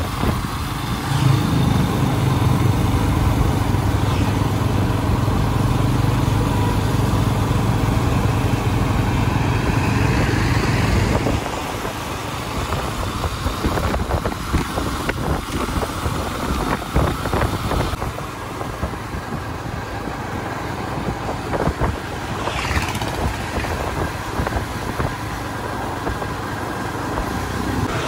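Road vehicle engine noise: a loud, steady engine drone for about the first eleven seconds, then quieter, uneven traffic noise with a brief rising sound a little before the end.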